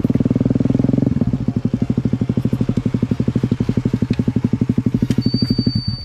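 Single-cylinder KTM Duke motorcycle engine running at a steady, low engine speed, with a rapid even beat of about twenty pulses a second; it is louder for the first second, eases off as the throttle is rolled back, and drops away near the end. A thin high steady tone sounds over the last second.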